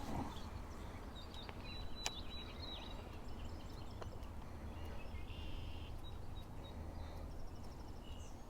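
Faint bird chirps and short trills over a steady low rumble, with a few sharp clicks.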